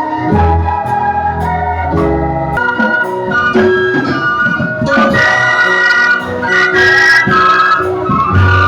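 Electronic organ keyboard playing a worship tune: sustained chords with a moving melody over deep bass notes, with light regular percussion clicks.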